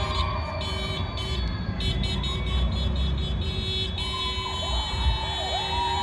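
An electronic siren: high beeping tones, which turn steady about four seconds in as a rising-and-falling wail starts repeating about twice a second, over a constant low rumble.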